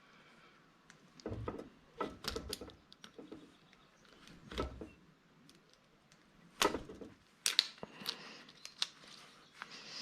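Scattered clicks, knocks and rustles of copper house wire being handled and worked to pull out the bare ground wire, loudest at a cluster of sharp clicks around two-thirds of the way in.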